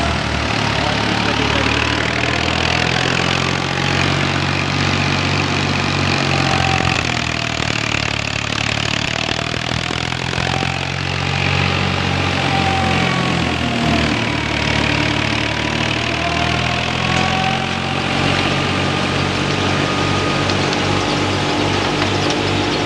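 Tractor engine running steadily under load to drive a wheat thresher, with the thresher's high whine slowly rising and falling in pitch over the engine's hum.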